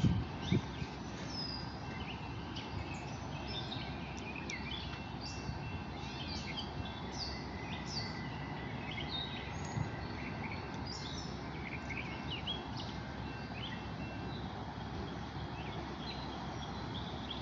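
Several songbirds chirping and singing in short repeated calls, over a steady low background rumble.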